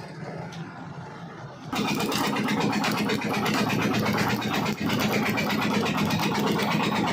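Stick (arc) welding on a steel axle housing: the arc strikes about two seconds in and crackles steadily over a low electrical hum.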